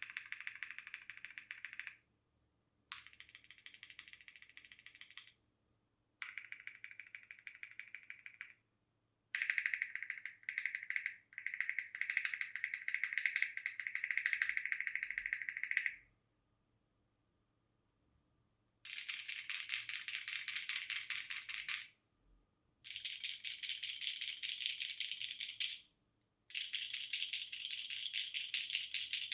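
Lubed Gateron X switches in a polycarbonate SingaKBD Kohaku mechanical keyboard with GMK keycaps, clacking in fast runs of keystrokes. There are seven runs of a few seconds each with short pauses between. The longest and loudest run is in the middle.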